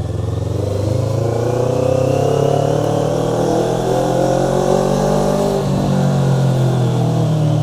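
Motorcycle engine pulling under throttle, its pitch rising slowly for about five seconds and then falling away near the end.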